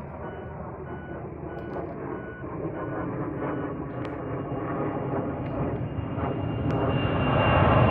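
Jet airliner taking off and climbing away at take-off thrust. Its twin engines give a steady rumble with a high whine, both growing louder through the clip.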